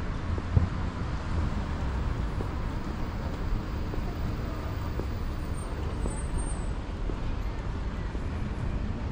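Steady city traffic noise from surrounding streets, with a single short knock about half a second in.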